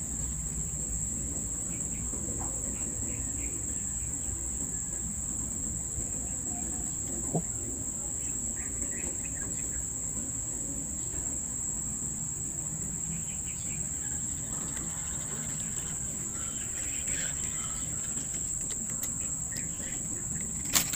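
Steady, high-pitched chorus of crickets, unbroken throughout, over a low background rumble. A sharp click comes once about seven seconds in and again just before the end.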